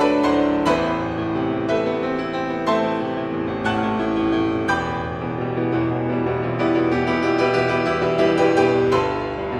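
Background instrumental music, with a new note or chord struck about once a second.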